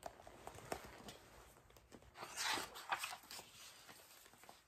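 Faint paper rustling and small handling clicks as a page of a hardcover picture book is turned, with the loudest rustle about halfway through.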